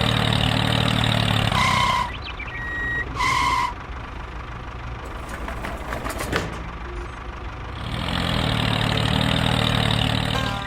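Heavy vehicle engine idling with a low, steady hum. About two seconds in it is broken by two short electronic beeps, about a second and a half apart. The engine drops away in the middle and comes back louder near the end.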